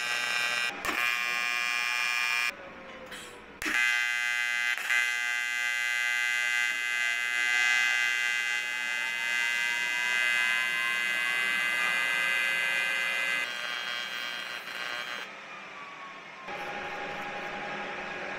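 AC TIG welding arc on magnesium from a Miller Multimatic 220 AC/DC, set to 120 Hz AC frequency and 80 amps, giving a steady, high, even buzz. The arc cuts out briefly about two and a half seconds in and restrikes about a second later, then weakens and stops near the end.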